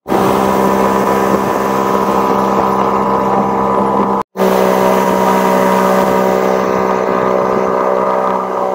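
Small outboard motor driving an inflatable boat at steady throttle, a steady drone with an even pitch. The sound drops out for a moment about four seconds in, then the motor carries on the same.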